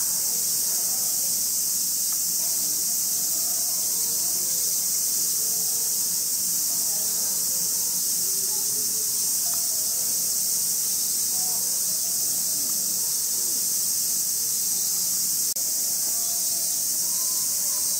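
Cicada chorus, a loud, steady, high-pitched drone without a break, with faint voices murmuring underneath.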